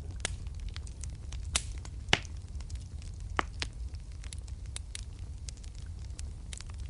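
Wood fire in a fireplace crackling with frequent small snaps over a steady low rumble of the flames. A few louder pops stand out, the loudest about two seconds in.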